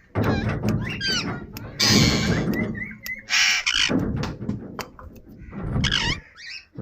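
Indian ringneck parakeet calling: harsh squawks about two and three and a half seconds in, mixed with short chirps that glide up and down in pitch.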